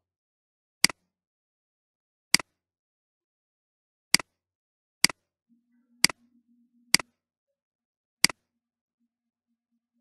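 Computer mouse clicking, seven sharp single clicks at uneven intervals, roughly one a second.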